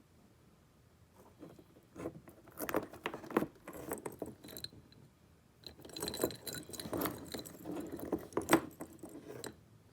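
A heavy metal charm bracelet jingling and clinking as it is handled, its dangling charms knocking together in bursts. It starts about two seconds in, pauses briefly near the middle, then goes on more busily.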